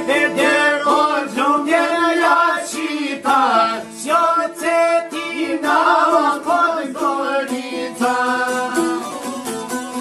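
Folk song: a man singing in long, bending ornamented lines over a rapidly plucked string instrument with a steady drone. The singing eases off near the end while the plucking continues.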